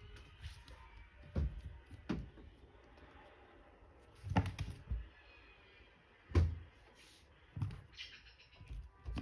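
A series of dull thumps and knocks at irregular intervals, about six in all, with the loudest about two-thirds of the way through.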